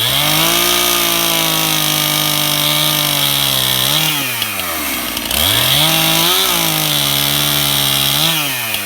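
Two-stroke chainsaw running hard through two long cuts in wood. At the end of each cut, about four seconds in and again near the end, the engine note rises briefly and then falls back.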